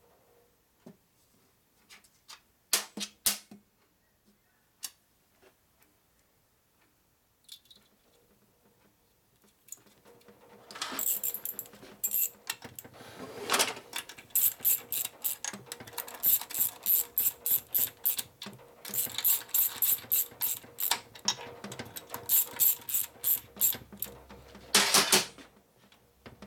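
Socket ratchet wrench clicking in quick runs of about five clicks a second, turning over the gear train in a Harley knucklehead engine's gearcase to check that it rotates without binding. A few separate taps of tools on the bench come earlier.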